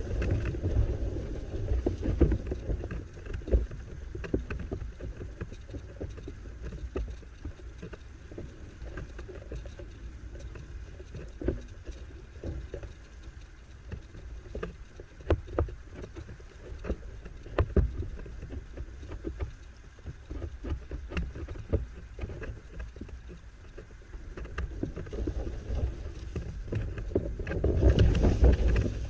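Wind buffeting a microphone mounted on a windsurf boom, with rushing water and irregular sharp clicks and knocks, as a windfoil board sails on its hydrofoil. The rush swells near the end as the board drags through the water in a burst of spray.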